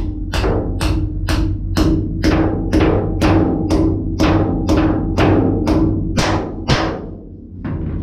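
Small sledge hammer striking a storm shelter's floor anchor again and again, about two blows a second, about fourteen in all, stopping about 7 seconds in.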